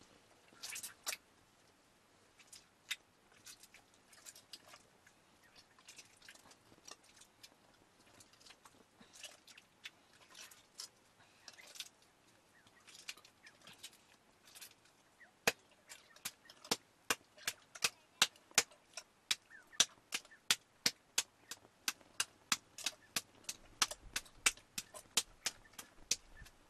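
Wet slapping and squishing of a lump of fresh butter being kneaded and pressed by hand over a pot of water. The first half has scattered slaps; from about halfway on, a quick, fairly regular run of sharp slaps comes two to three a second.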